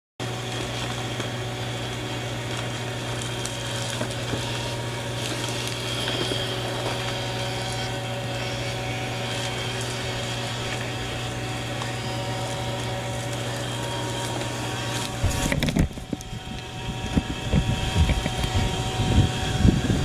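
Roomba robot vacuum running with a steady motor and brush hum. From about three-quarters of the way in, irregular low thumps and rumbling join in and are louder than the hum.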